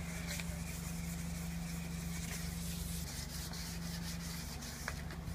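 Hand sanding of a car bumper with a yellow abrasive pad, a steady scratchy rubbing as the surface of the masked-off repair area is keyed for paint. A steady low hum runs underneath.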